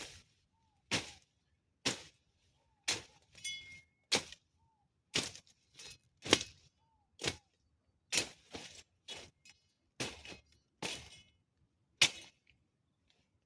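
A hand tool striking over and over, like chopping, about once a second, with some blows coming in quick pairs.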